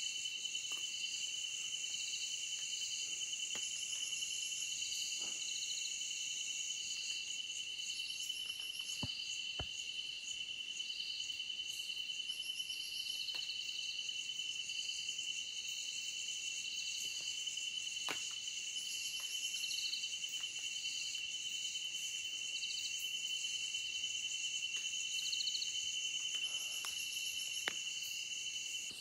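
Night chorus of crickets and other insects: a steady high-pitched trill, with pulsing chirps repeating about once a second and a higher buzz every few seconds. A few faint clicks.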